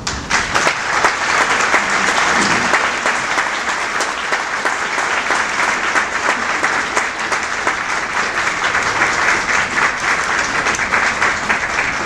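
A large crowd applauding, breaking out suddenly at the start.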